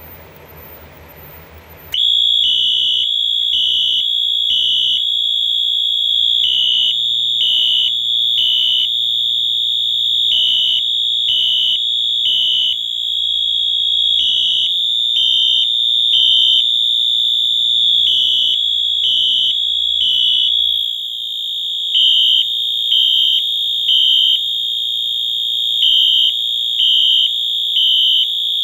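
Fire alarm horns sounding in general alarm, set off by an addressable smoke detector, starting abruptly about two seconds in. A steady high-pitched horn tone runs under loud pulsed horn blasts in the three-pulse temporal pattern, one group of three about every four seconds.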